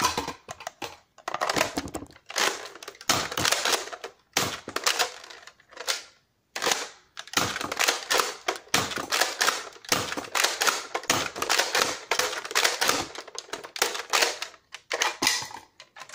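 Nerf N-Strike Recon CS-6 dart blaster being primed and fired again and again: quick runs of plastic clacks and shots, with short breaks about a second in, about four seconds in and around six seconds in.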